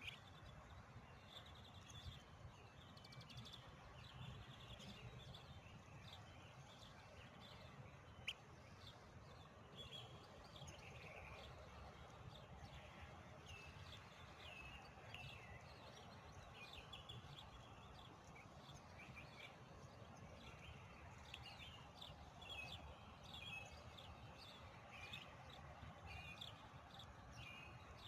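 Faint outdoor ambience: small birds chirping over and over in the background, many short falling chirps, over a low steady rumble. A single sharp click about eight seconds in.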